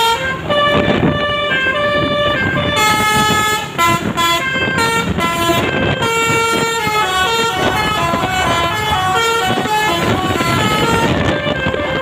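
Basuri telolet horn on a coach bus playing a fast melody of steady multi-tone notes that step up and down one after another, over low road and engine noise.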